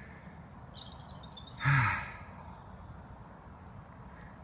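A man's short breathy sigh about a second and a half in, over a steady hum of distant road traffic, with faint bird chirps.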